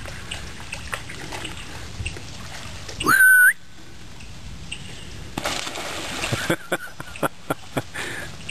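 A short, loud whistle about three seconds in that rises quickly and then holds one pitch. Later, water splashing and a few sharp taps.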